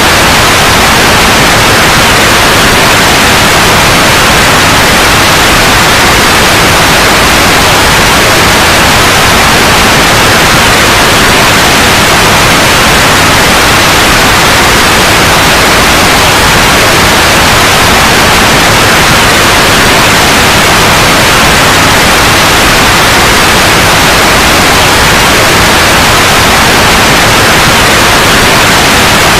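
Steady, loud white noise, an even hiss across all pitches with no change.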